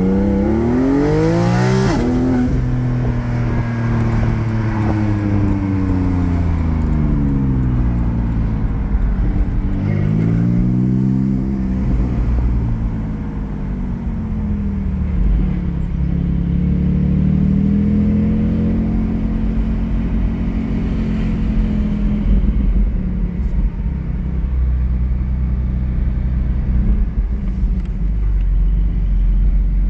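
Porsche 718 Cayman GT4's flat-six with Soul over-axle exhaust pipes, heard from the cabin with the windows down, pulling away hard. The revs climb sharply for the first two seconds, drop at an upshift, then ease off. The engine picks up and falls back twice more and settles to a low, steady run for the last several seconds.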